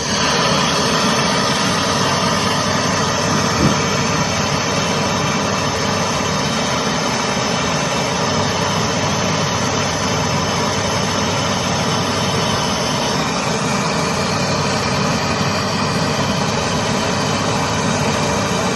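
A steady mechanical running noise, a low hum with a hiss over it, starts abruptly and runs on evenly, with one brief knock a few seconds in.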